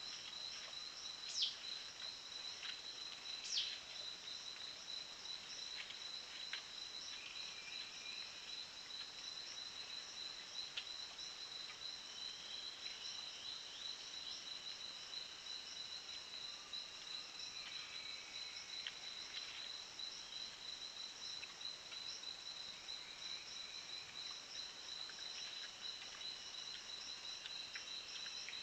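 Steady insect chorus of tropical forest, a high pulsing trill that runs on without a break, with scattered thin bird-like calls over it. Two short, sharp high calls about one and a half and three and a half seconds in are the loudest sounds.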